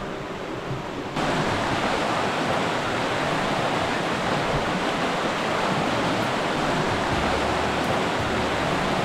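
Fast-flowing stream rushing over rocks: a steady, even rush of water that gets suddenly louder about a second in.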